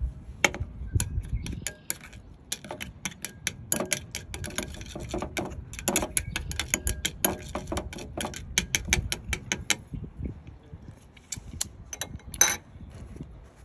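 Chopsticks beating shrimp-paste dipping sauce in a ceramic bowl, clicking rapidly against the bowl at about four clicks a second. After about ten seconds the clicking thins to a few scattered taps, with one louder clink near the end.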